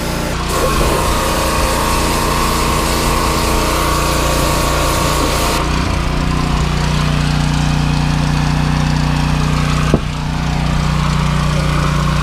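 Small engine of a pressure washer running steadily, with the hiss of the water spray for roughly the first half; the spray stops about halfway through while the engine keeps running. A single sharp click about two seconds before the end.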